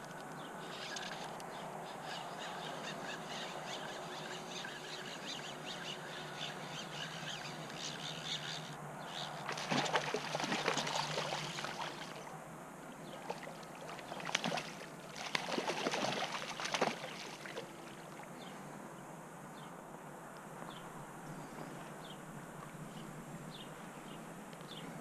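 Hooked brown trout thrashing and splashing at the creek's surface in two bouts, each about two seconds long, roughly halfway through. Under it, steady trickling water and scattered small bird chirps.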